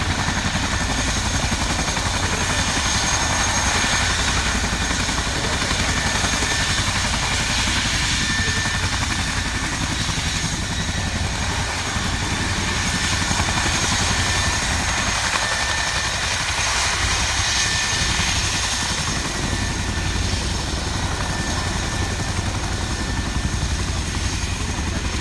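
RAF Chinook twin-rotor helicopter running on the ground with both rotors turning, its two turboshaft engines giving a steady rotor and engine noise with a thin high whine over it.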